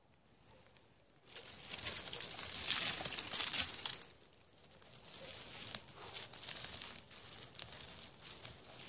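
Dry twigs, small branches and leaf litter rustling and crackling as someone pushes through undergrowth. The sound is loudest for a few seconds starting about a second in, then thins to lighter, scattered rustling.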